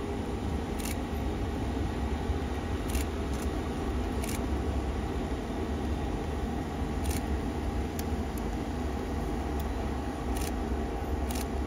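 Electric locomotive E60 10 running in a slow parade, a steady low rumble, with a few sharp clicks scattered through it.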